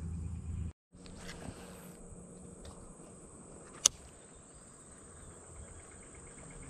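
Steady high-pitched insect drone from the surrounding vegetation, with a single sharp click about four seconds in.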